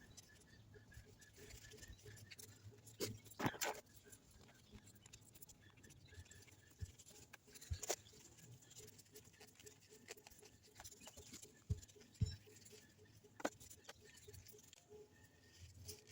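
Faint handling noises: scattered light taps and scrapes of small oil-change parts and a rag being handled, over quiet room tone.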